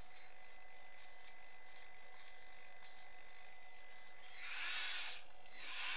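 Electric drive motors and plastic gearboxes of an RC skid steer loader running with a steady whine of several fixed tones, surging louder for about a second near the end as it is driven harder.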